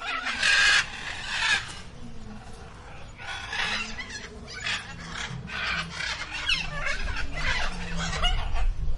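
Animal calls, bird-like: a run of short, harsh squawks or clucks one after another, with some calls overlapping.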